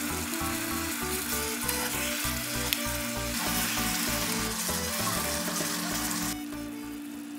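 Pork belly, bean sprouts and perilla leaves sizzling in a hot frying pan while being tossed with metal spatulas, with a single sharp click of a utensil a little before the middle. The sizzle stops short near the end, over background music with a rhythmic bass line.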